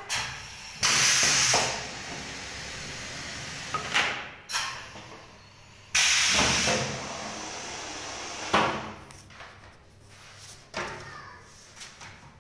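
Pneumatic cylinder of a screen printing machine releasing compressed air in two loud hisses, about a second in and again about six seconds in, each starting suddenly and trailing off into quieter hiss. A few short knocks fall between them.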